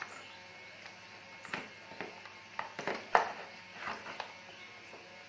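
Plastic coolant overflow tank and its hoses on a Honda VT250F knocking and clicking against the frame as they are handled, about seven short sharp knocks with the loudest about three seconds in. Faint background music underneath.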